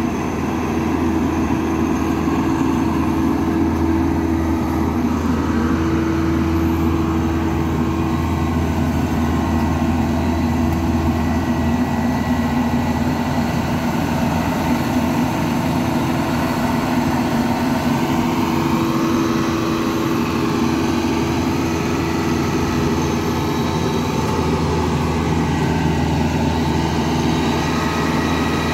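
Diesel engine of a Bimo tracked corn combine harvester running steadily as the machine crawls over a ditch on steel ramps, with a constant low hum.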